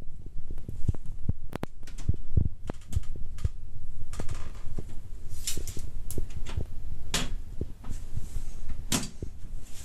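PC case side panel being lowered onto the chassis and fitted into place: a run of knocks and thumps, with a few sharp clicks from about five seconds in.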